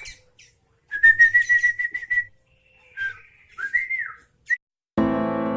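Sooty-headed bulbul (kutilang) calling: a wavering whistled note with a rattle of clicks, then a few short whistles that rise and fall. Piano music comes in near the end.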